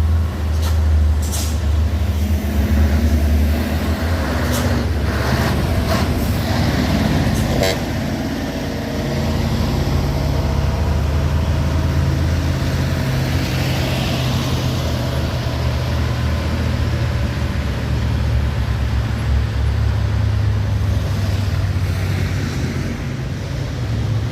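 Heavy diesel truck engine running steadily with a deep, low drone. There are a few short sharp noises over the first eight seconds.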